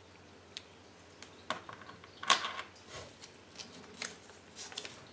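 A small Kinder Surprise toy packet being handled and unwrapped: scattered short crinkles and clicks, the loudest a little over two seconds in.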